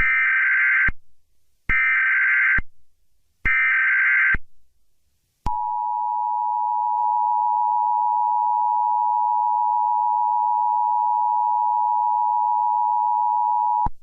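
Emergency Alert System SAME header: three short bursts of screeching digital data tones, each about a second long and evenly spaced. These are followed by the EAS two-tone attention signal (853 and 960 Hz sounding together), held steady for about eight seconds and cutting off sharply. Together they mark the start of a broadcast emergency alert, with a spoken message to follow.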